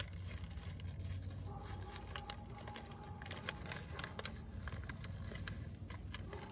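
Clear plastic parts bag of rubber O-rings crinkling and rustling in gloved hands, many small irregular crackles. A steady low rumble of wind on the microphone runs underneath.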